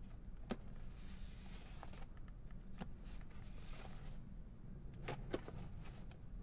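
Ribbon being pulled off a cardboard gift box and the box opened: soft rustles and a few light clicks over a low background hum.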